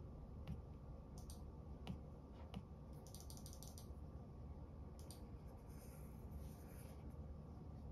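Faint clicks of an Apple Pencil tip tapping on an iPad's glass screen, single taps about a second apart with a quick run of taps about three seconds in. Near the end the pencil tip draws a light, hissy stroke across the glass.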